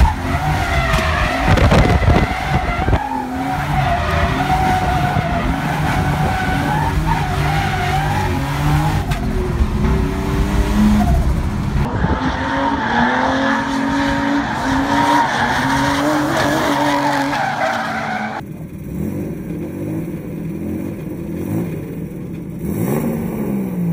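Turbocharged BMW E36 with an M50B20 straight-six driven hard on a drift track, the engine at high revs with pitch rising and falling, along with tyre squeal. It is heard first from inside the car, then from trackside about twelve seconds in, and quieter from about eighteen seconds in.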